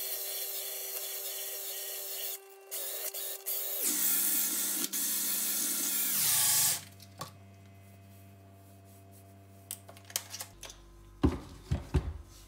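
Makita cordless drill spinning a wooden screwdriver handle against hand-held sandpaper: a steady motor whine under a loud sanding hiss. About 4 s in the motor drops to a lower speed, then winds down and stops around 7 s. A few sharp knocks follow near the end as the drill and screwdriver are handled.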